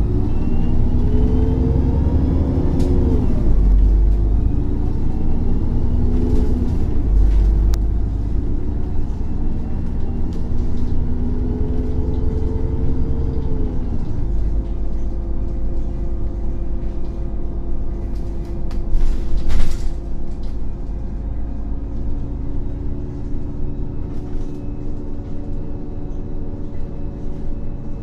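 Irisbus Cityclass bus's Cursor 8 CNG inline-six engine pulling away through its Voith automatic gearbox. The pitch climbs and drops back at gear changes about 3 and 7 seconds in, climbs again, then eases off about 14 seconds in and runs steadily, with a thin whine rising alongside. A loud, brief burst of noise comes about 19 seconds in.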